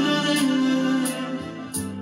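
Instrumental backing music between sung lines: held notes with faint regular percussion ticks, and a new sustained keyboard chord coming in near the end.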